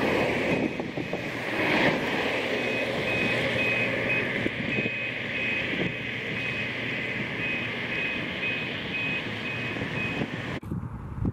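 Vehicle back-up alarm beeping over and over at one high pitch, over a steady engine rumble; it all cuts off abruptly shortly before the end.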